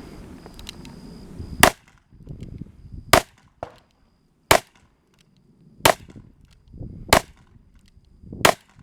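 .357 Magnum revolver fired six times in steady succession, a shot about every second and a half.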